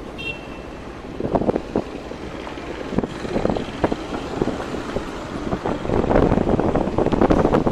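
Wind buffeting the microphone over the low rumble of heavy construction vehicles such as dump trucks and transit mixers, growing louder about six seconds in.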